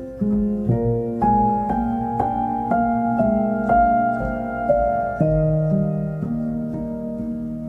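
Background piano music: a slow melody with a new note about every half second.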